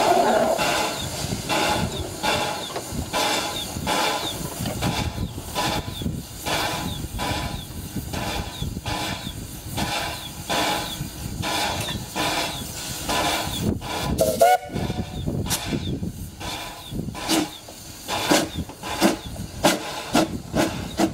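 Narrow-gauge steam locomotive working slowly, its exhaust chuffing in steady, evenly spaced beats over a steam hiss. About two-thirds of the way through it gives a short whistle toot, and the chuffs grow sharper and louder near the end.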